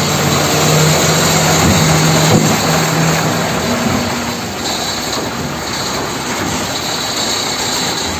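A steady engine-like running noise with a strong hiss, and a low hum that fades out about halfway through.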